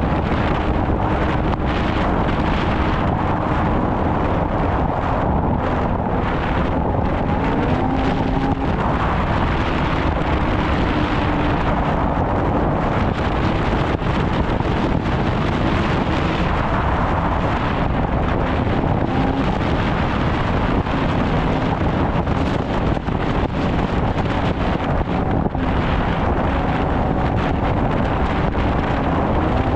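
Snowmobile engine running steadily under way, its pitch drifting slightly up and down, with wind buffeting the microphone.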